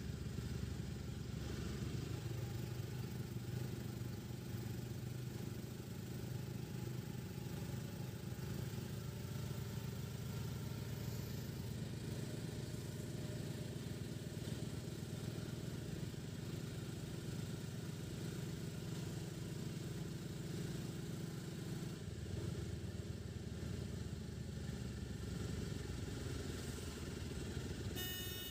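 Auto rickshaw engine running steadily under way, heard from on board, with road and traffic noise; its deepest rumble eases a little about three quarters of the way in. A brief burst of high-pitched tones comes at the very end.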